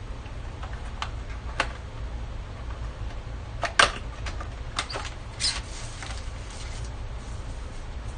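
Steady low hum with a handful of sharp clicks and knocks scattered through, the loudest about four seconds in.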